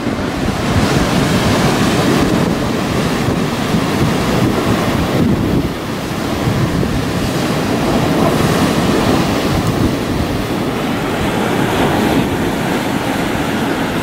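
Ocean surf breaking and washing over a rocky shoreline, a loud continuous rush, with wind buffeting the microphone.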